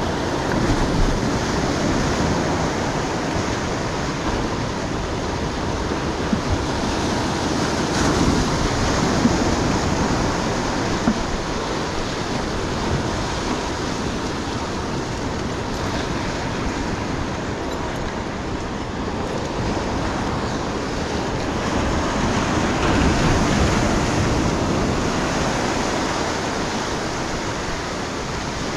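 Ocean surf washing in and breaking over rocks at the waterline, a steady rushing that swells louder a few times as bigger waves come in.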